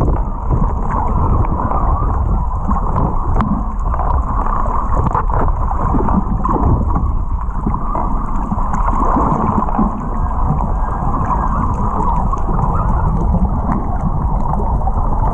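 Muffled rushing and sloshing of water under a moving boat's hull, heard underwater through a camera's waterproof housing, with a few faint knocks. It cuts off suddenly at the end.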